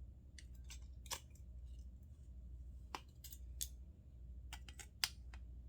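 Scattered small clicks and ticks of hand tools working on the metal and plastic parts of a disassembled electronic doorknob, about a dozen sharp ticks at uneven intervals, the loudest about five seconds in. A steady low hum lies underneath.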